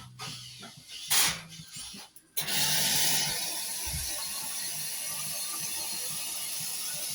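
Steam wand of an Iberital L'Adri two-group espresso machine opened about two and a half seconds in: a sudden loud, steady hiss of steam. Before it come a few clicks and knocks, the loudest just after a second in.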